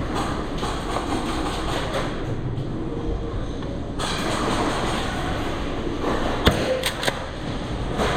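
Steady rumbling noise, with a sharp crack about six and a half seconds in and two lighter clicks just after it.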